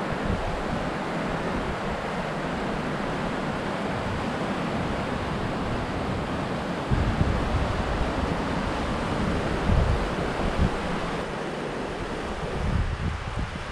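Steady rushing of a mountain river running over rapids. About halfway through, gusts of wind start buffeting the microphone.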